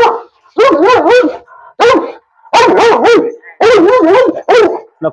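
Fila Brasileiro barking loudly and repeatedly in quick volleys behind its kennel gate. This is aggressive barking at a stranger who has come close.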